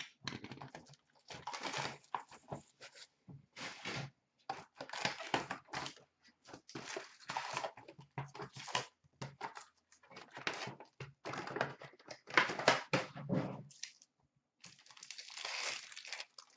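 Cardboard hobby box of hockey cards being torn open and its wrapped packs pulled out and handled, the cardboard and pack wrappers crinkling and tearing in irregular bursts of rustling.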